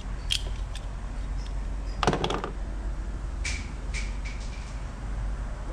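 Small clicks and rattles of test leads and probe connectors being handled, the loudest cluster about two seconds in, over a steady low hum.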